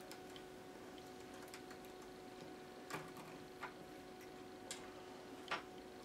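Faint clicks of small metal Zippo lighter parts being handled and fitted together by hand, four scattered ticks in the second half, over a faint steady hum.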